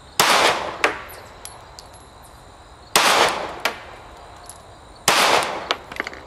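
Glock 43 9mm subcompact pistol fired three times in slow aimed fire, shots about two to three seconds apart. Each shot has a short decaying tail and a fainter sharp click about half a second after it.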